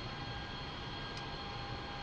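A steady mechanical hum with a low rumble and a faint, unchanging high whine.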